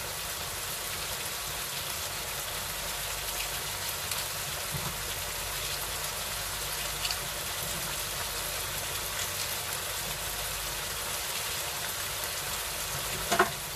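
Beef sizzling in a frying pan in its own juices, a steady crackling hiss. A single sharp knock sounds near the end.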